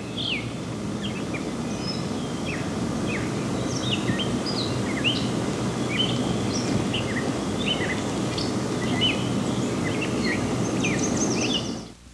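Outdoor ambience of many small birds chirping, short downward-slurred notes several times a second, over a steady low background rumble. It drops away sharply near the end.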